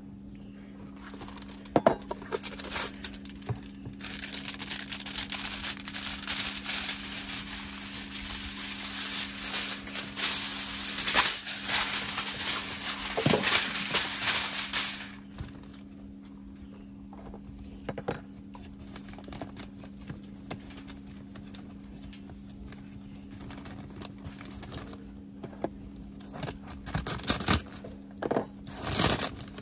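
Heavy-duty aluminum foil being pulled off the roll and handled: a long, loud crinkling rustle for the first half, then quieter handling with scattered crinkles and a few louder crinkles near the end as the sheet is spread out.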